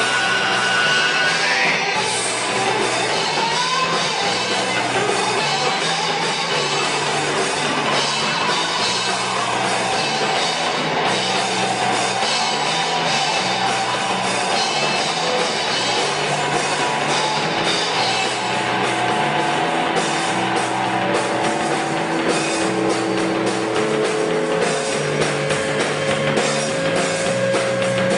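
A rock band playing: electric guitar, bass and drum kit, continuous and loud, with held guitar notes in the second half.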